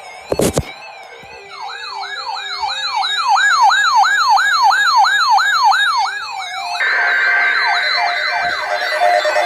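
Electronic siren cycling in a fast rising yelp, about three sweeps a second, loud. A sharp knock comes just before it, and a harsh steady buzz joins it near the end.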